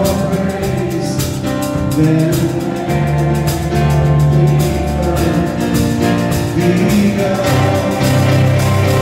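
Live worship band music: a woman singing over a strummed twelve-string acoustic guitar and a drum kit.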